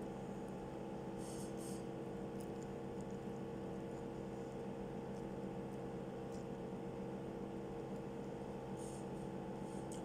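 Steady electrical hum from a kitchen appliance, with a few brief faint crackles of the bread being handled, about a second in and again near the end.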